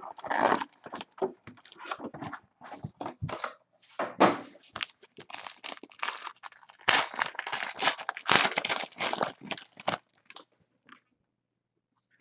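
A sealed box of trading cards being opened by hand: tearing and crinkling of the wrapper and cardboard, in irregular rustling bursts that stop about ten seconds in.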